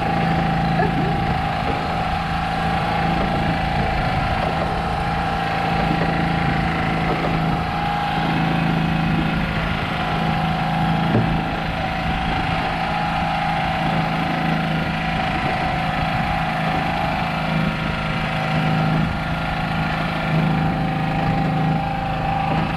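An engine on the boat running steadily at an even speed, a constant drone with a steady higher hum over it.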